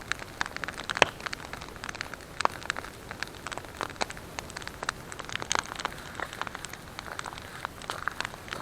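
Wood campfire crackling: irregular sharp pops and snaps over a steady hiss, one louder pop about a second in.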